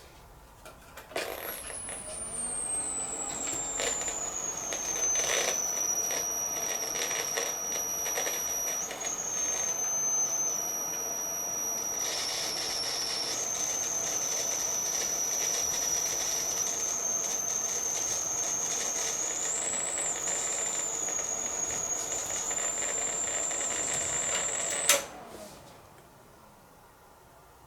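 NEC PC-9821An desktop computer switched on and running with a high-pitched whine that slides down in pitch over the first few seconds and then holds steady, over a mechanical hum. It cuts off suddenly with a click near the end. The whine is the abnormal noise the machine came with.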